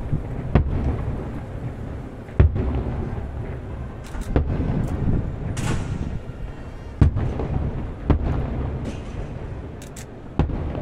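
Aerial firework shells bursting: about six sharp bangs a second or two apart, over a continuous low rumble of more distant bursts and their echoes.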